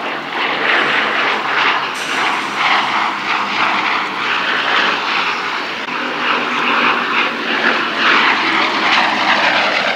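Bristol Blenheim's twin Bristol Mercury radial engines running steadily as the bomber makes a low flypast.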